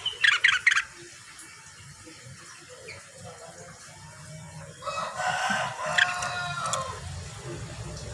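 Rengganis (cucak wilis) songbird calling: a short, harsh burst of rapid notes in the first second, then after a pause a louder, longer call of several falling notes about five seconds in.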